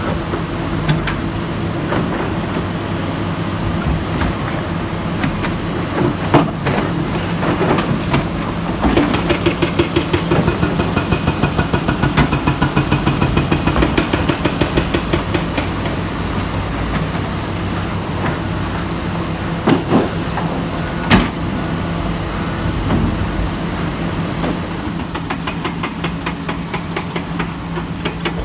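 Komatsu hydraulic excavator's diesel engine running steadily, with a fast rhythmic clatter for several seconds in the middle and again near the end, and a few sharp metallic knocks.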